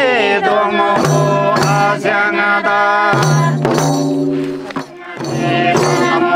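Traditional Tamang welcome song (tamba) sung over a steady beat of dafli frame drums, with a short lull in the singing about five seconds in.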